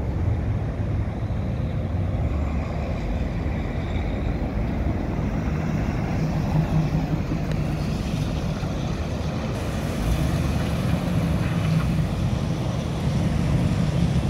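1967 Chevrolet Camaro's engine running as the car drives slowly around, a deep, steady note that grows a little louder near the end.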